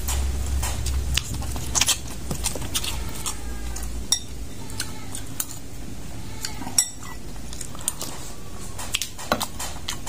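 Close-up eating sounds: mouth chewing with frequent wet clicks and smacks, and a metal spoon clinking now and then.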